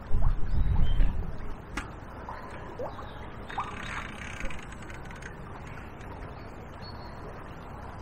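Outdoor river ambience: steady rush of flowing water, with wind buffeting the microphone in the first second, a few short chirps and a single click about two seconds in.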